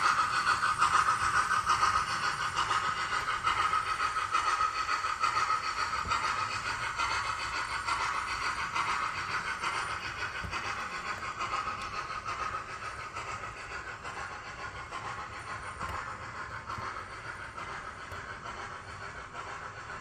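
Dapol Black Label OO gauge A4 model steam locomotive running with its sound fitted: a fast, hissing steam-engine sound with rapid pulsing. It starts abruptly and gradually gets quieter.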